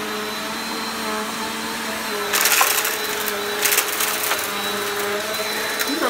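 Upright vacuum cleaner running on carpet with a steady motor whine, and two bursts of crackling as it sucks up crunchy debris, about two seconds in and again a second later.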